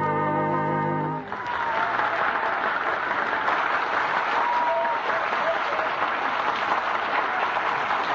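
A held musical chord ends about a second in, and a studio audience breaks into steady applause that carries on to the end.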